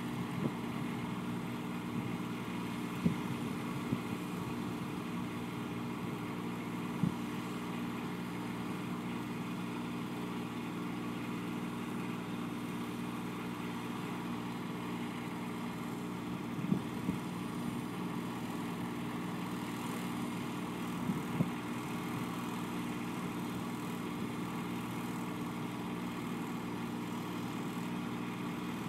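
An engine running steadily at a constant pitch, like an idling engine, with a few brief clicks.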